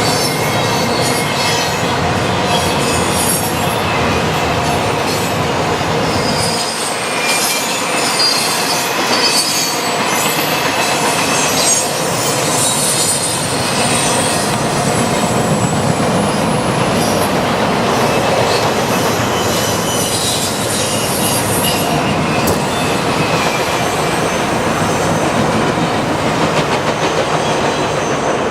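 Freight cars of a long train rolling past, steel wheels clattering over the rails, with high-pitched wheel squeals coming and going.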